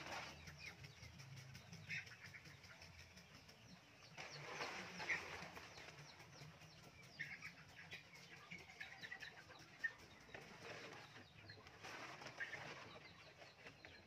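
Faint farmyard sounds: scattered short bird chirps, with occasional rustling as a plastic tarp is handled, and a couple of sharp clicks.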